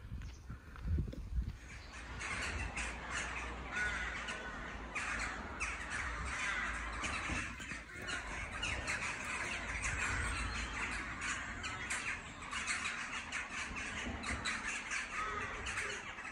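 A large colony of rooks cawing in the treetops: many overlapping calls form a dense, continuous chorus, starting about two seconds in. A few low thumps come before it.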